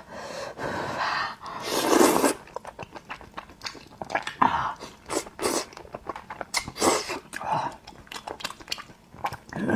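A person slurping up a mouthful of thick noodles in chili sauce, loudest from about half a second to two seconds in, then chewing them with many quick clicks and a shorter slurp about halfway through.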